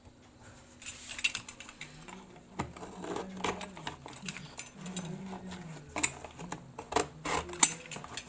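Utility knife blade scraping and slicing through packing tape on a cardboard box, with irregular sharp clicks and crackles as the cardboard is handled.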